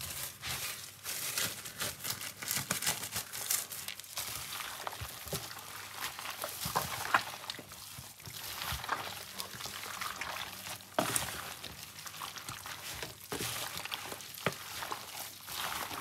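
Raw chicken pieces in a wet marinade squelching and slapping as a gloved hand mixes them around a plastic tub, in irregular bursts.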